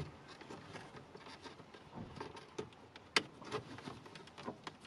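Plastic trim pry tools working at a car's dashboard trim surround, with scattered light clicks and taps, the sharpest about three seconds in.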